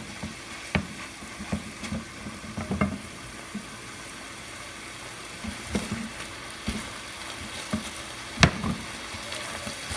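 Chicken breast sizzling in butter in a skillet, with irregular knocks and scrapes of a utensil against the pan as the pieces are moved around; one sharp knock near the end stands out.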